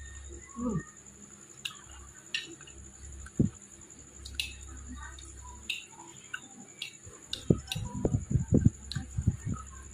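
Close-up eating sounds: chewing and wet mouth smacks, with a metal spoon clicking and scraping on a plate as rice is scooped up. The smacking comes thick and fast near the end.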